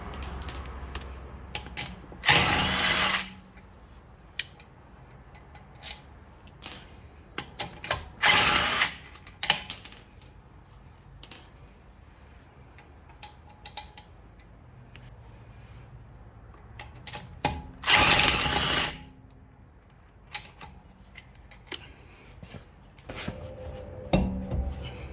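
A handheld power tool run in three bursts of about a second each, with tool clicks and knocks between them.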